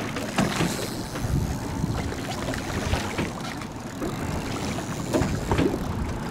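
Wind buffeting the microphone over open, choppy sea, with water sloshing and slapping irregularly against the boat's hull.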